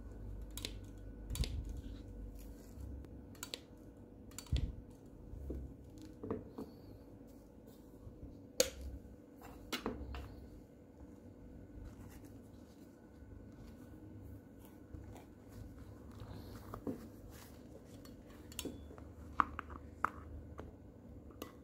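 Spring-loaded metal puller pliers clicking and clacking as they are handled and their jaws opened and closed, with scattered taps of metal on a wooden bench and a quicker cluster of clicks near the end as the jaws are clamped on. A faint steady hum sits underneath.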